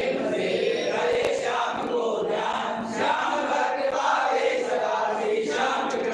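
A group of devotees chanting together without a break, many voices blended into one devotional chant.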